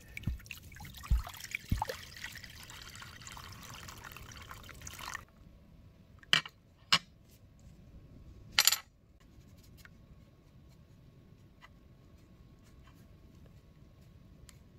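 Water poured from a glass bottle into a glass dish for about five seconds, with a few low thuds in the first two seconds. Then three or four sharp clicks of steel adjustable-wrench parts knocking against the glass dish, followed by faint ticks as the parts are scrubbed with a small brush in the water.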